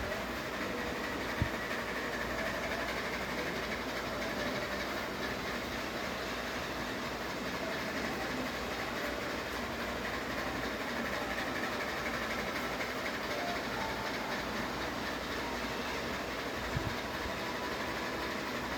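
Ceiling fan running with a steady whirring noise. Two brief clicks, one about a second and a half in and one near the end.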